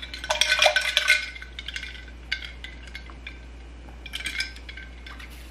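Metal straw stirring iced tea in a glass mason jar and clinking against the glass: a quick flurry of ringing clinks in the first second, scattered clinks after, and another short burst about four seconds in.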